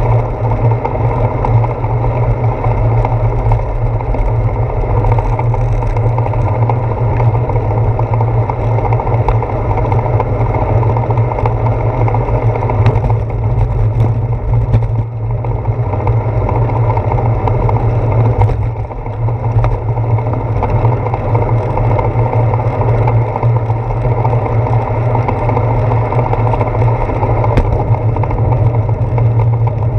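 Steady, loud low rumble of wind and road vibration picked up by a handlebar-mounted GoPro Hero 4 on a moving bicycle riding a wet road, easing briefly about fifteen and nineteen seconds in.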